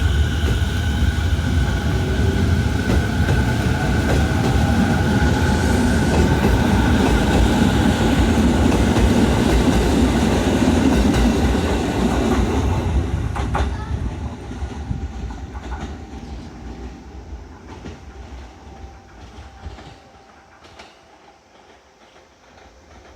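Electric commuter train departing, its traction motors whining in a rising pitch as it gathers speed and its wheels clattering over rail joints. The sound fades away over the second half as the train recedes.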